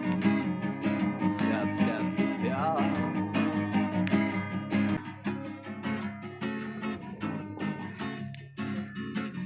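Acoustic guitar strumming chords, growing quieter and sparser about halfway through.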